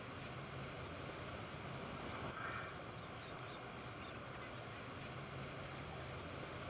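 Outdoor ambience: a steady low hum under an even hiss, with a few faint, short bird chirps now and then.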